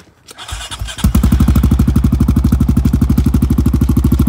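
2016 Honda Rubicon ATV's single-cylinder engine cranked briefly and catching about a second in, then idling steadily with an even, rapid pulse through its newly fitted RJWC Mud Edition aftermarket exhaust.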